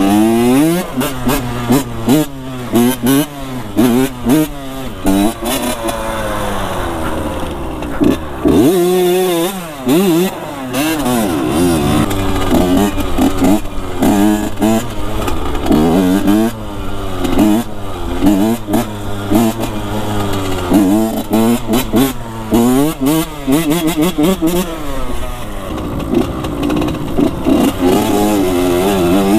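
Dirt bike engine being ridden, its pitch rising and falling over and over as the throttle opens and closes, with a brief lull about nine seconds in.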